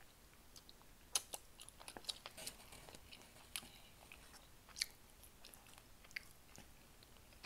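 Faint close-miked chewing of chicken wing meat, with scattered sharp mouth clicks and smacks.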